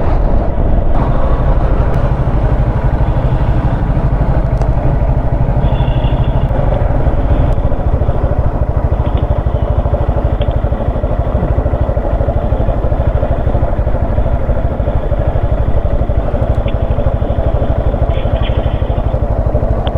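Motorcycle engine running steadily at low revs, with no revving up or down, as the bike rolls slowly.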